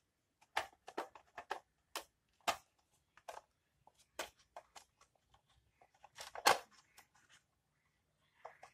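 Hard plastic case of a d.light solar lantern being handled and turned over, giving scattered clicks and knocks, the loudest about six and a half seconds in.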